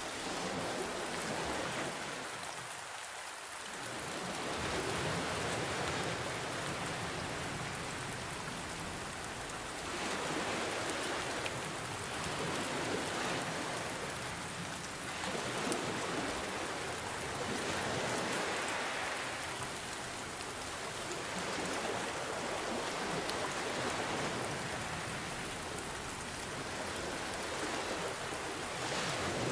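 Steady rain hissing and pattering, mixed with ocean waves that swell and fall back every few seconds.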